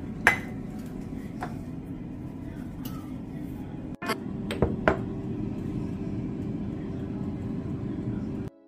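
Kitchenware clinking as milk and seasonings go into a saucepan of boiled potatoes: one sharp clink near the start, a few lighter ones, then two more close together about five seconds in, over a steady low hum.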